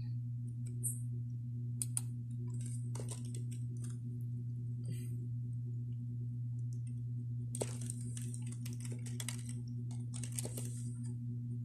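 A steady low electrical hum, with scattered light clicks and rustling that grow denser in the second half.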